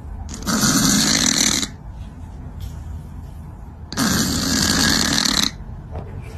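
Snoring: two long snores, each lasting more than a second, about three and a half seconds apart.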